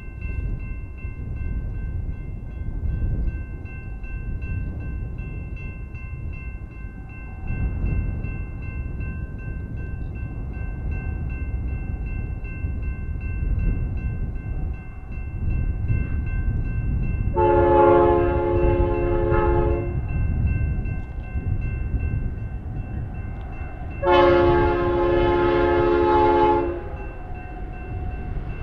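Air horn of an approaching BNSF freight locomotive, sounding two long multi-note blasts about six seconds apart, with a third just starting at the very end. A steady low rumble lies under it throughout.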